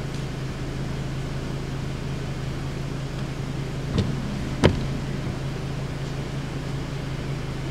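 Steady low hum with an even background hiss inside a stopped car, broken by two short sharp clicks about four seconds and four and a half seconds in.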